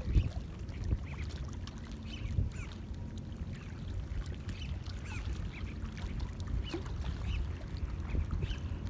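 Small waves lapping and splashing against a boat's hull in many small, irregular plops, over a steady low rumble.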